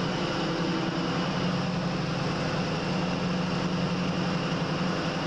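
Class 43 HST power car heard from inside its driving cab while running under power: a steady diesel drone with the rush of the moving train.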